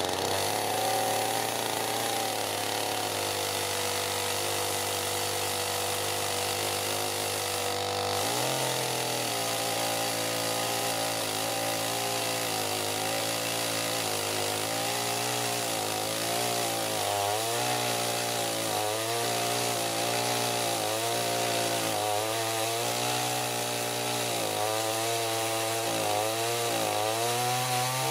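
Chainsaw running at high revs, then cutting into wood about eight seconds in, its engine pitch dipping and recovering every second or so under the load of the cut.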